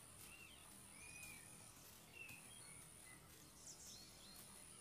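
Near silence of natural ambience: scattered faint bird chirps, short and gliding in pitch, over a thin high insect buzz that stops and starts.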